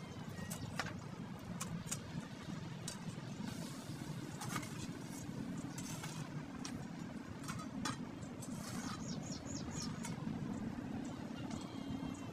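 Dry leaves and twigs crackling and rustling as brush is pushed aside and handled, in scattered sharp snaps, over a steady low rumble.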